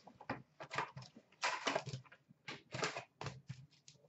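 Cardboard and card-pack wrappers being handled: irregular short rustles, crinkles and light taps as a hockey card box is opened and a stack of cards is set down.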